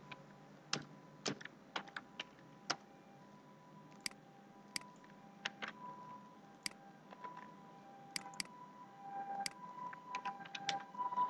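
Quiet, scattered keystrokes on a computer keyboard with mouse clicks: single sharp clicks with uneven pauses between them, about twenty in all.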